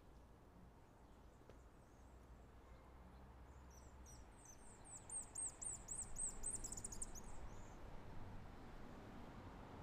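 A small bird singing a high, rapid trill of short falling notes, starting about four seconds in and lasting some three seconds, over faint background noise.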